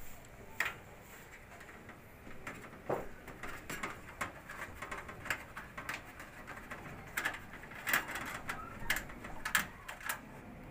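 Hands working inside a metal desktop PC case, freeing the video card from its slot: a run of short clicks, taps and light knocks of metal and plastic, several a second.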